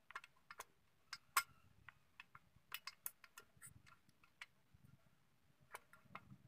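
Faint, irregular metallic clicks and ticks of motorcycle transmission parts being handled and fitted by hand around the gearshift drum in an open crankcase, with one sharper click about a second and a half in.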